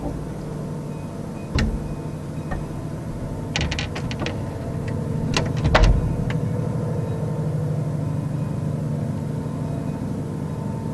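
A steady low droning hum made of several held tones, of unknown origin, which the uploader says sounds like an airplane but ran unbroken for hours. Sharp clicks come through it once about a second and a half in and in a cluster a few seconds later.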